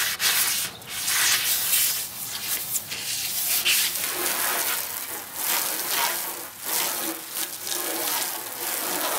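Wet sanding sponge scrubbing the painted surface of a steel car fender in uneven back-and-forth strokes, smoothing it before a coat of Plastidip; water from a garden hose sprays across the panel.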